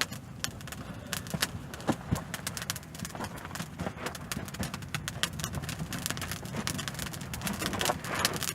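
A freshly lit birch bark and kindling fire crackling as the flames take hold: a dense run of sharp, irregular snaps that grows busier near the end.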